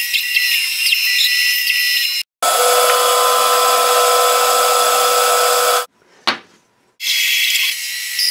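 Bandsaw running and cutting through wood, heard in short spliced pieces: the sound stops abruptly about two seconds in and again near six seconds. A brief silence near six seconds holds a single sharp click.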